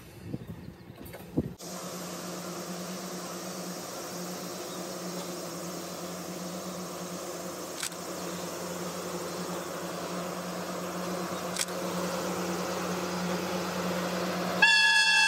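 DD51 diesel-hydraulic locomotive approaching, its engines a steady drone that slowly grows louder. Near the end it sounds its horn, one loud, steady, high note.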